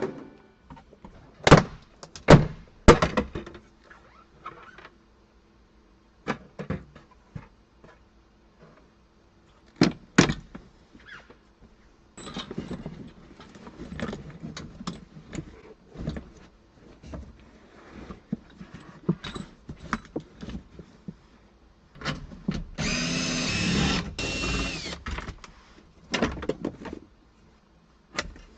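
Car interior parts being worked loose by hand: scattered knocks and clicks and a long stretch of scraping and rustling. Near the end a power tool's motor runs steadily for about two seconds.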